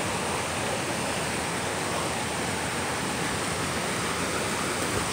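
Rain-swollen woodland creek rushing and splashing over rocks, a steady full-throated noise of fast whitewater running in flood.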